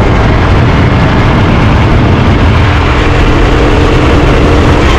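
Rental go-kart engine running steadily at speed, loud and close, with an even low engine note.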